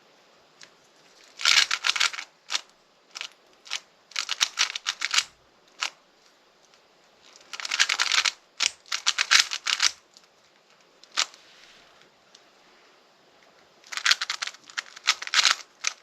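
Rubik's-type speedcube being turned by hand: quick runs of plastic clicking as layers are turned in fast sequences, with single turns and short pauses in between.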